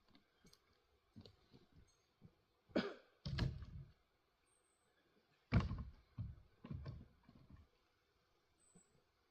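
A 3.5-pound Velvicut Jersey axe chopping firewood: a sharp strike about three seconds in, followed at once by a heavier thud, then another hard strike a little past the middle and a few softer thuds after it.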